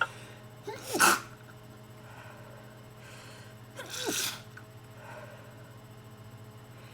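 A person sneezing twice, about three seconds apart. Each sneeze is a short voiced wind-up gliding down in pitch, then a sharp burst. The sneezes are from a heavy head cold on top of allergies.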